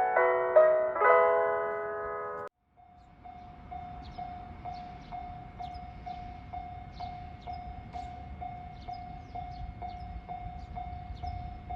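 Piano music cuts off about two and a half seconds in; then a Japanese level-crossing warning bell rings, an even repeating chime about two to three times a second, the signal that a train is approaching.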